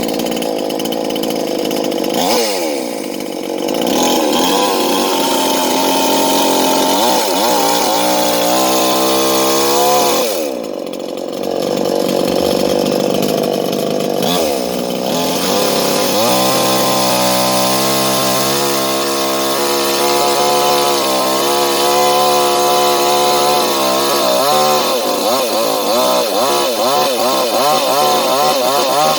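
J.L.D. two-stroke petrol chainsaw running at high revs. The throttle is let off and opened again three times, so the pitch drops and climbs back, and near the end the revs waver.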